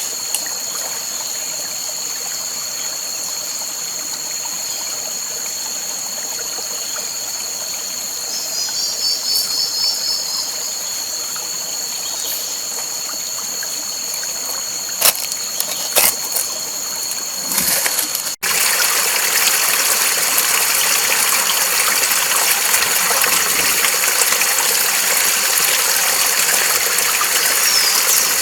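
Flowing water of a forest waterfall and stream under a steady high-pitched drone, with a short chirping trill and two sharp clicks partway through. About eighteen seconds in, the sound cuts abruptly to louder, fuller rushing water.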